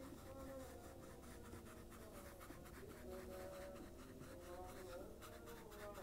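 Permanent marker tip scratching on canvas in quick, short, repeated strokes, several a second, as a scalloped bush outline is drawn.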